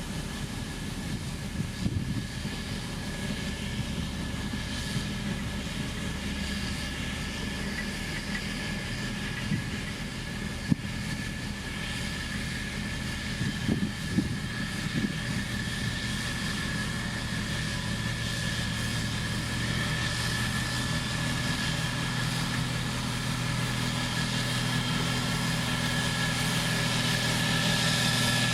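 Diesel engine of heavy road-building machinery running steadily and growing louder toward the end, with a steady high whine and a few short knocks around the middle.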